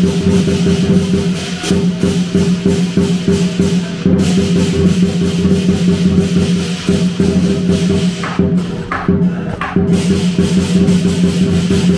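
Southern lion dance percussion: a drum beating a fast, driving rhythm with gong and cymbals ringing over it, breaking off briefly a few times.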